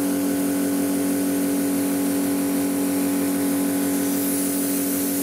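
Built-in air compressor of a Parkside Performance PPSK 40 A2 plasma cutter running steadily with a fast rhythmic pulse, blowing air hissing out through the torch, over the steady hum of the machine's cooling fan.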